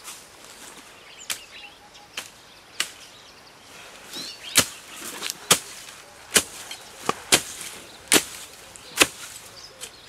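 A series of sharp knocks or strikes: a few faint ones, then, from a little before halfway, louder ones about once a second. Faint bird chirps sound in the background.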